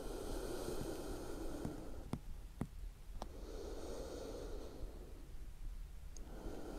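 A woman breathing slowly and deeply, faint: about three long breaths, with a few small clicks around the middle.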